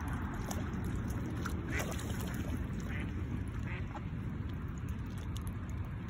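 Mallard ducks dabbling for food in shallow water, with a few short quacks between about one and a half and four seconds in, over a steady low rumble.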